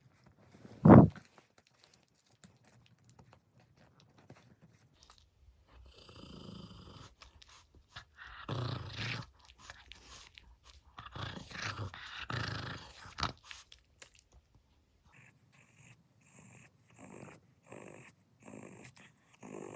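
Maltese dog growling in several short bursts, after one sharp, loud sound about a second in.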